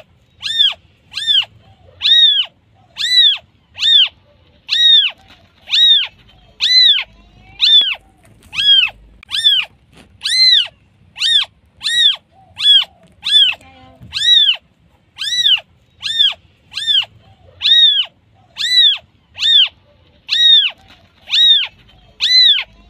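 Newborn kitten meowing over and over: short high-pitched cries that rise and fall in pitch, about three every two seconds, a kitten's call for its mother.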